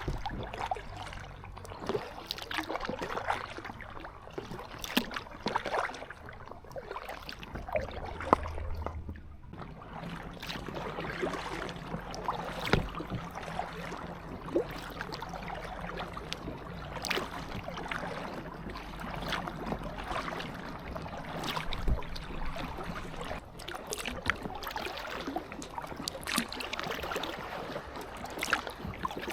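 Paddling an inflatable kayak: irregular splashes and drips of paddle strokes, with water gurgling and lapping against the hull. A faint low steady hum joins about ten seconds in.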